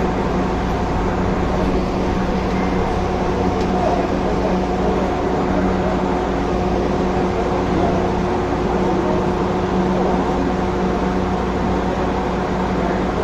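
Light rail train running along the track, heard from inside the driver's cab: a steady rolling noise with a constant hum under it.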